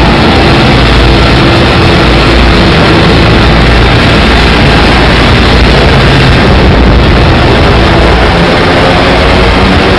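A heavy engine running steadily, very loud and distorted, with a low hum under a dense wash of noise.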